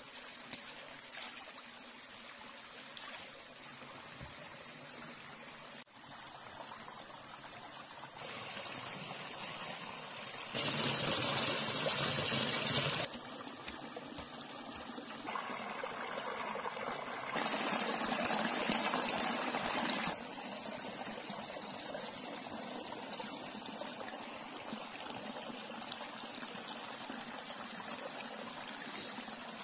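Small rocky stream trickling steadily. Twice the water grows louder for two or three seconds, with splashing and pouring as water is scooped and rinsed at the edge.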